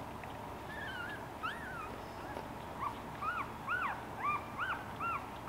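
A one-week-old Boston Terrier puppy whimpering in short, high squeaks that rise and fall. There are a few squeaks at first, then a quick run of about two a second in the second half.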